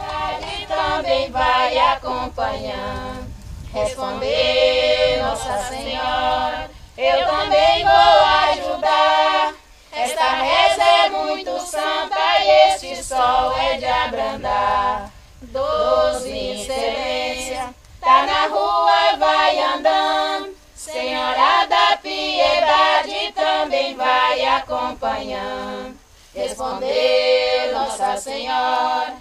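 A group of women singing an incelência de chuva, a Brazilian folk penitential chant asking for rain, unaccompanied. The song goes in sung phrases of a few seconds each, with short pauses between them.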